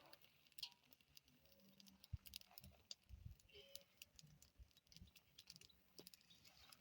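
Near silence with faint, scattered clicks and light knocks.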